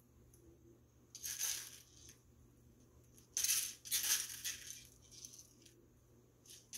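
Candy sprinkles rattling in a small plastic container as they are shaken and pinched out and scattered onto frosted cupcakes, in a few short bursts: about a second in, again around three to four and a half seconds, and near the end.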